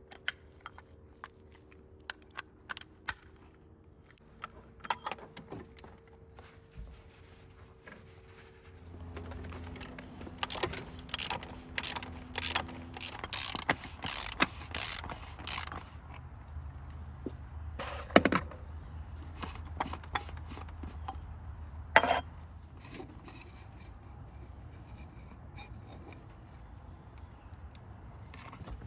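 Ratchet wrench clicking and tools knocking on metal during an engine oil change. Scattered clicks come first. About ten seconds in come runs of louder ratcheting clicks, over a steady low hum.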